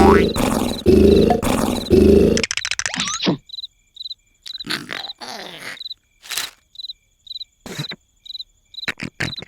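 Loud cartoon snoring, rasping snores in quick succession, which stops about two and a half seconds in with a short falling sound. Then crickets chirp steadily, about twice a second, with a few short sound effects in between.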